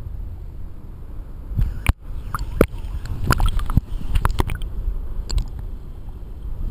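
Creek water sloshing and splashing close to the microphone as a person swims or floats, with a low rumble and scattered sharp knocks of the camera being handled in the water. The knocks grow busier about a second and a half in.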